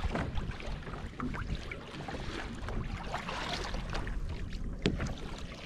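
Water slapping and splashing against a kayak hull at sea, with irregular small knocks and wind rumbling on the microphone.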